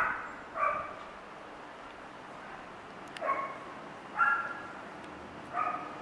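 A dog barking out of sight: five short barks, two close together at the start, then three more spaced about a second apart.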